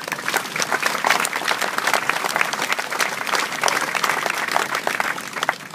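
Large audience applauding, many hands clapping at once, starting suddenly and dying away just before the end.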